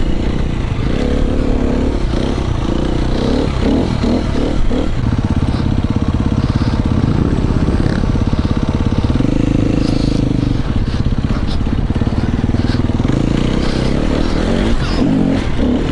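Off-road dirt bike engine running under load, revving up and down as it is ridden over rough, rocky ground.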